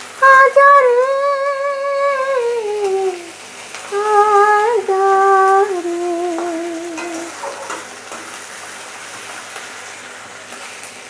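A woman singing the last phrases of a song in long held notes that fall away at the end of each phrase, over sliced onions sizzling in oil in a kadai. The singing stops about seven seconds in, leaving only the frying.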